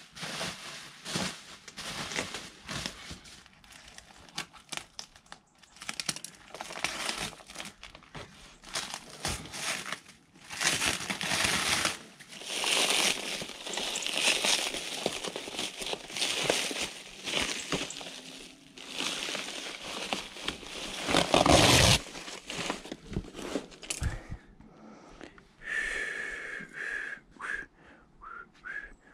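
Bubble wrap and plastic packaging crinkling and crackling in irregular bursts as hands pull it off a new mountain bike.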